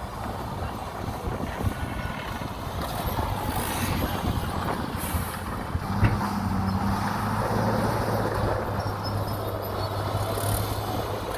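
Heavy diesel earthmoving machinery running with a steady engine hum and rumble. A single sharp knock comes about six seconds in, after which the engine hum is steadier and stronger.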